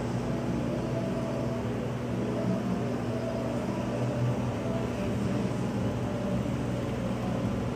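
Steady low mechanical hum, continuous and unchanging.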